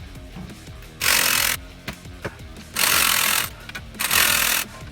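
A power wrench driving a driveshaft's flange bolts, run in three short bursts.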